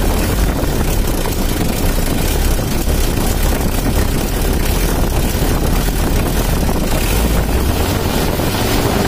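Mitsubishi L300's 4D56 four-cylinder diesel engine running steadily with its valves and injection pump freshly adjusted. It sounds smooth and dry, not too rough.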